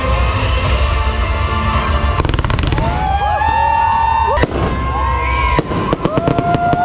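Background music, then from about two seconds in a fireworks display: repeated sharp bangs and crackling, with long gliding high tones rising and falling over them.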